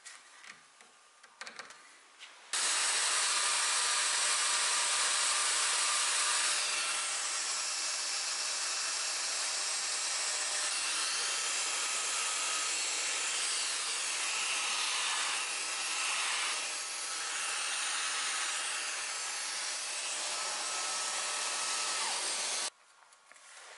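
A few light knocks, then a small handheld electric belt sander starts about two and a half seconds in and runs steadily, sanding a glued-in wood patch flush on an antique chair rail. It stops abruptly near the end.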